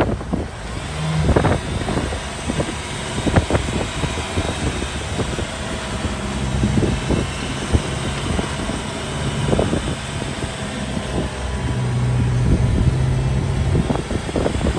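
Safari jeep driving along with its engine running, the hum shifting in pitch several times, under steady wind noise and scattered short knocks and buffets.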